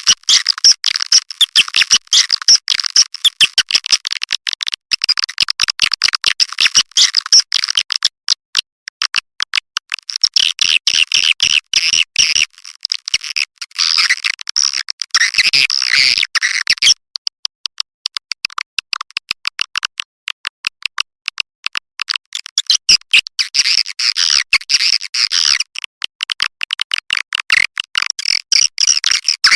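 Recorded swiftlet calling sound of the kind played to lure edible-nest swiftlets into a nesting house. It is dense, rapid, high-pitched chirping and twittering in long runs, cut off below the low end.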